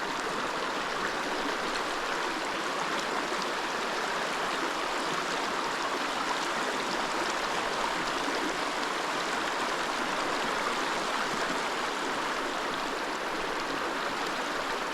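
Small mountain creek running steadily, an even rush of flowing water.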